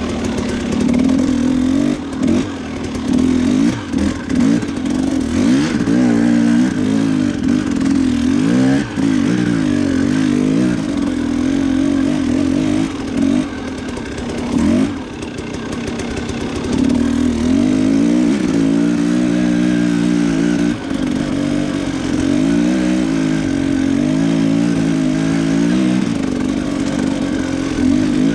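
A Husqvarna TE 300 two-stroke enduro dirt bike's single-cylinder engine being ridden, revving up and down over and over with the throttle, its pitch rising and falling every second or two.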